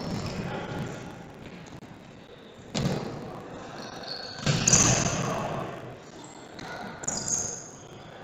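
Futsal match play: a futsal ball thuds sharply about three seconds in and again, louder, a second and a half later, with short high squeaks of shoes on the court floor.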